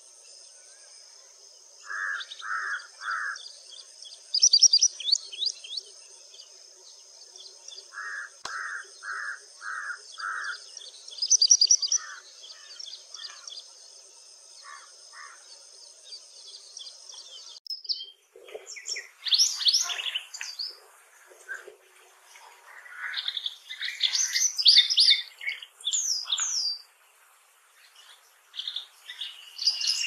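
White-browed wagtail calling: short clipped notes in quick runs of three to five, with a few higher trilled notes between them. About halfway through this gives way to a fuller, varied song of sharp notes jumping in pitch. A steady high buzz sits under the first half.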